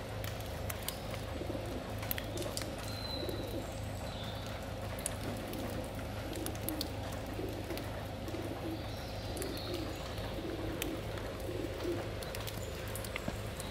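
Pigeons cooing in a run of short repeated low phrases, over a steady low hum.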